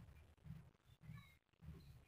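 Faint, soft pats of hands shaping a maize-flour roti on a plate, about two a second in a steady rhythm.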